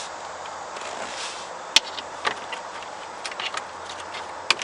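A few sharp, scattered clicks of hand tools working the bolts of a transmission pan, over a steady background hiss.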